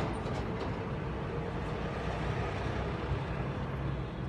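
Steady engine and road rumble of a moving vehicle, heard from inside it, with city traffic passing outside.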